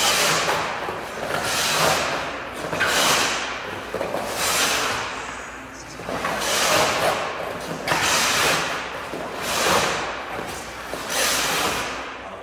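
Goaltender's skate blades scraping the ice in a series of hard lateral pushes and shuffles across the crease, about eight strokes at intervals of one to two seconds.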